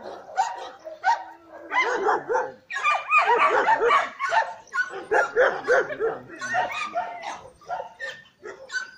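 Dogs barking in play, a quick run of short barks and yips that never lets up and is busiest about three to four seconds in.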